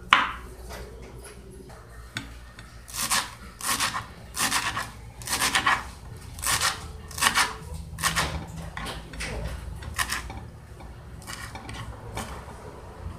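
Kitchen knife mincing fresh coriander on a wooden cutting board: short runs of quick chopping strokes, about one run a second, starting a few seconds in.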